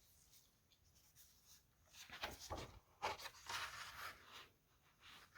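Faint rustling and rubbing of paper being handled, a cluster of short scratchy rustles from about two seconds in until about four and a half seconds in.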